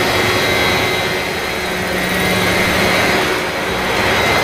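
Large radio-controlled scale model helicopter running with its rotors spinning, lifting off and hovering. The sound is steady and unbroken, with a high-pitched tone over the rotor noise.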